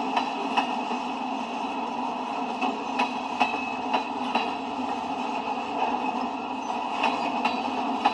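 Freight train cars, open hoppers and autoracks, rolling past on steel wheels: a steady rolling noise broken by short, sharp wheel clicks at irregular intervals.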